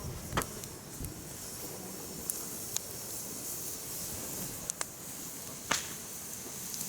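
Firewood burning in a mesh fire pit: a steady hiss with sharp crackles and pops, about half a dozen, the loudest about half a second in and near the end.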